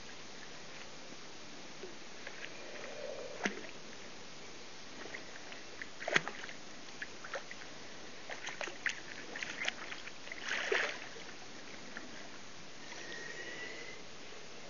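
Water splashing and sloshing in irregular bursts as two turtles mate at the surface: single sharp splashes about 3.5 and 6 seconds in, then a busy run of splashes around 8 to 11 seconds.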